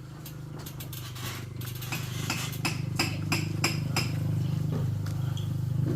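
Hammer blows on metal: a run of sharp, ringing clinks, two or three a second, starting about two seconds in, over a steady low hum.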